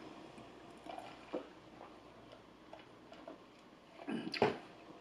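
Quiet chewing and wet mouth clicks from eating chicken fingers, with a louder short smack about four seconds in.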